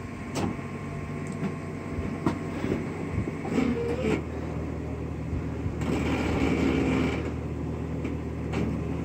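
Jeep Wrangler Unlimited engine running at low speed as it crawls over sand and rock, with a few sharp knocks and crunches from the tyres on the stones. The engine swells louder for about a second a little past the middle.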